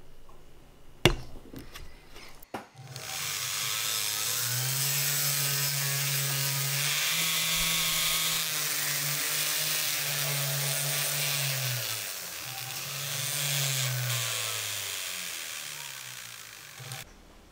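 Jeweller's rotary tool spinning a polishing wheel against the inside of an 18ct gold ring band: a steady grinding hiss over a motor hum whose pitch rises and falls as the speed changes, cutting off suddenly near the end. Two sharp clicks come just before the motor starts.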